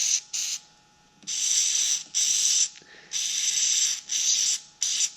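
Aerosol can of lithium grease sprayed in short hissing bursts, about seven in a row, to lubricate the sliding door's slider and moving parts.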